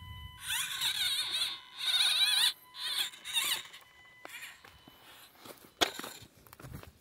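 Axial SCX24 micro RC crawler's P90 motor and gears whining in three short throttle bursts as it crawls over rocks, the pitch wavering up and down. Quieter clicks and scrapes follow, with a sharp knock about six seconds in.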